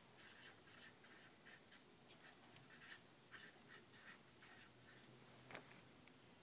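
Near silence with faint, irregular light scratches and one slightly sharper click near the end.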